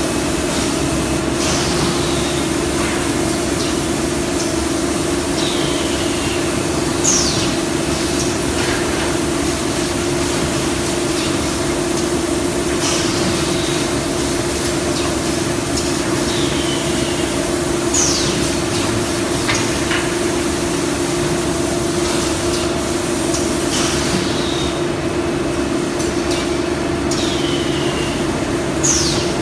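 Cement roof tile making machinery running in a factory: a steady hum, with a short falling hiss about every five or six seconds.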